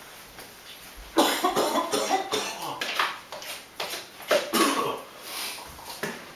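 A person coughing in a series of short bursts, setting in about a second in, a reaction to the stench of rotting food.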